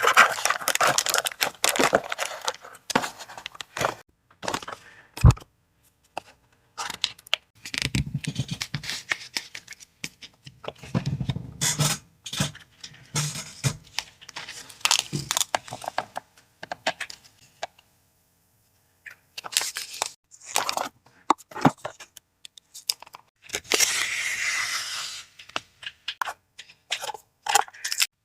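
Paper and packaging being handled close up: tearing, crinkling and rustling, with many short irregular clicks and taps. There is a brief pause about two-thirds of the way through, then a longer stretch of rustling.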